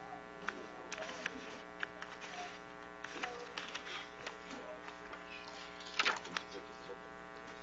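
Steady electrical buzz from the sound system, with faint room murmur and small clicks over it.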